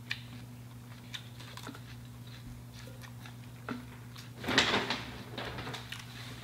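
Eating and handling sounds at a meal: a few faint clicks of cutlery and food, then a brief, louder crunching rustle about four and a half seconds in. A steady low electrical hum runs underneath.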